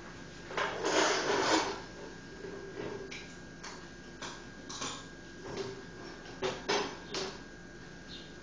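Kitchen handling noises: a rustling scrape about half a second in, the loudest part, then a string of light clicks and knocks roughly every half second. The blender is not running.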